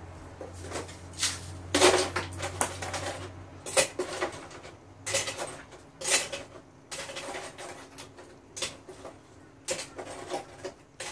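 Irregular clatter and knocks of household objects being handled, with short rustling bursts in between. A low hum stops about four seconds in.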